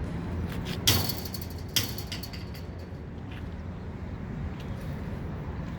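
Two sharp knocks about a second apart, the first followed by a high ringing that fades over a couple of seconds, over a steady low outdoor rumble.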